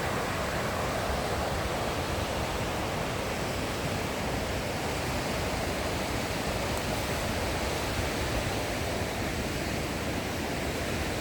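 Steady rushing of a fast-flowing river, an even wash of water noise with no breaks.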